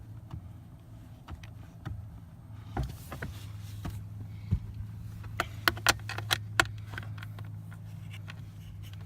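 Sharp metallic clicks and knocks of hand tools and screws as a blower fan is fitted back into place in a tight space, with a cluster of louder clicks midway. A steady low hum runs underneath.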